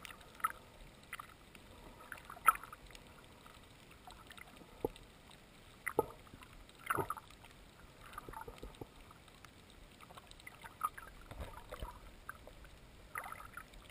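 Water-muffled sound picked up by a GoPro in a waterproof housing in the sea: a low hiss with scattered irregular clicks, knocks and short splashy bursts, the loudest about two and a half seconds in and again around six to seven seconds.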